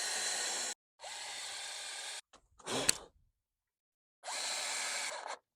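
Power drill running in three short bursts, drilling and driving screws into pallet-wood shelf boards, with a brief sharp knock just before the third burst.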